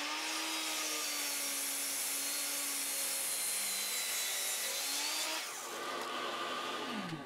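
Miter saw cutting in one pass through a bundle of thick solid black walnut boards taped together. The saw runs at a steady level for about five and a half seconds, then drops lower near the end.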